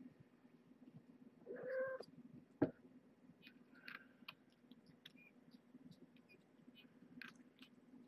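A cat meows once, briefly, about a second and a half in, followed by a single sharp knock, then faint scattered ticks over a steady low room hum.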